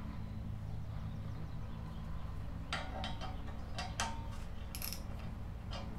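Scattered light metallic clicks and clinks of a steel bolt and washer being handled and threaded by hand into a powder-coated steel bumper end cap's D-ring mount, over a low steady hum. The clicks start about halfway through, with a quick cluster near the end.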